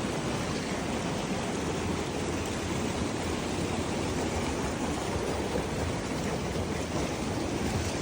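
Steady rush of creek water with no breaks.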